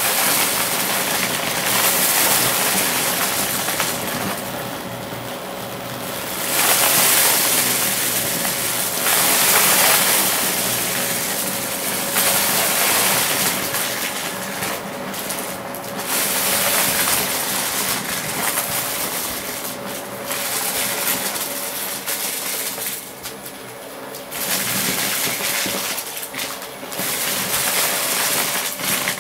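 Dyson ball upright vacuum running with a steady motor whine while it is pushed back and forth into a pile of small crunchy plastic bits. The debris rattles and crackles as it is sucked up, and the noise swells and fades with each pass.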